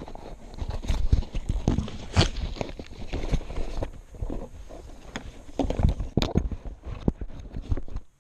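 Handling noise from an action camera being gripped and moved, with irregular knocks, bumps and rubbing right at its microphone. It stops abruptly near the end.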